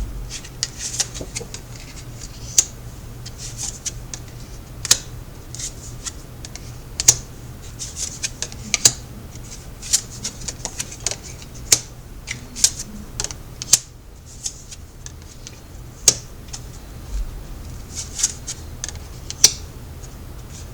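Tarot cards being handled on a table: an irregular series of sharp snaps, taps and short rustles as the cards are shuffled and laid out, over a faint steady hum.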